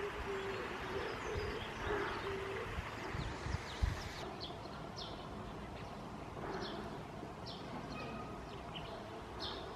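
Wild birds calling: a low hooting or cooing note repeated several times in the first few seconds, then a small bird's short high chirps repeating through the rest, over a steady background hiss.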